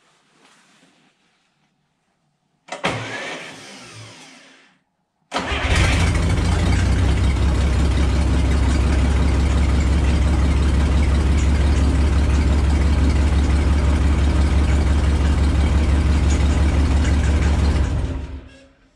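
Old Yale forklift's engine test-started with the key: a short burst about three seconds in, then the engine catches about five seconds in and runs steadily with an even low pulse for some twelve seconds before it is switched off near the end. This is a test start after a wiring short that kept blowing the fuse was repaired, and it seems to be working now.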